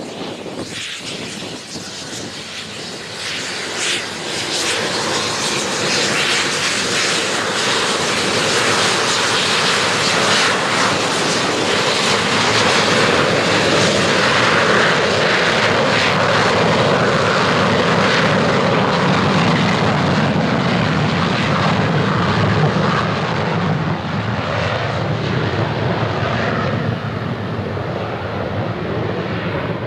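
Boeing 737-200's Pratt & Whitney JT8D turbofan engines on the takeoff roll, loud. The noise swells a few seconds in as the engines come up to takeoff power, holds steady, and slowly fades near the end as the jet moves away down the runway.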